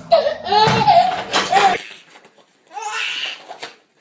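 A baby's high-pitched squeals and laughs in short cries that bend up and down in pitch. The low room hum cuts off abruptly about two seconds in, and one more rising squeal follows soon after.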